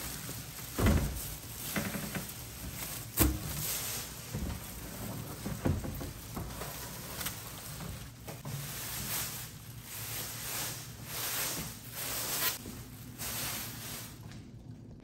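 Plastic wrapping crinkling and rustling against a cardboard box as a boxed microwave oven is slid out of its packaging by hand, with two sharp knocks about one and three seconds in.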